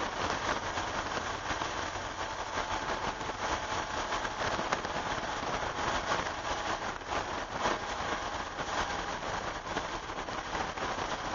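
Cabin noise of a 1988 Porsche 911 at speed on a wet track: a steady hiss of tyre spray and rain on the car, with its air-cooled flat-six engine running underneath.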